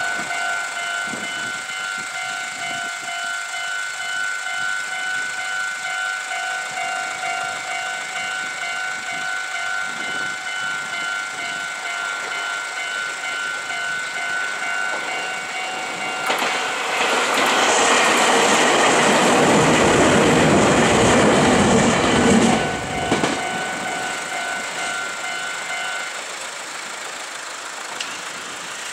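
Japanese level-crossing warning bell ringing in a rapid, steady repeat. About two-thirds of the way in, a Meitetsu 6500 series electric train passes over the crossing for about six seconds, its wheels clacking over the rail joints. The bell stops a few seconds after the train has gone.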